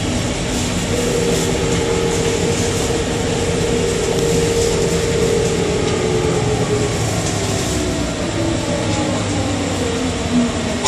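Bombardier Innovia APM 100 people-mover car running on its rubber tyres, heard from inside the car: a steady rumble with a motor whine that holds its pitch, then falls over the second half as the train slows. A brief knock comes near the end.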